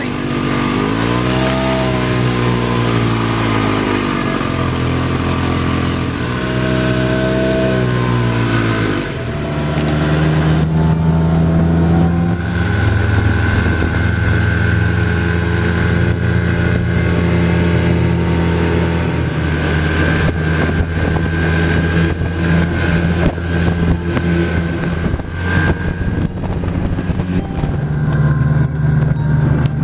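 Snowmobile engine running under way. Its pitch swells and falls twice as the throttle changes, then holds steady at cruising speed.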